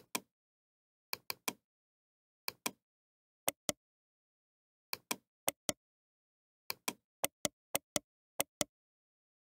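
Computer mouse clicking: about twenty short, sharp clicks, mostly in quick pairs, with dead silence between.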